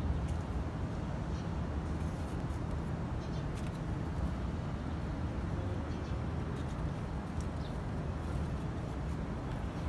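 Steady low engine-like hum, as from an idling vehicle or machine, with a few faint scattered clicks.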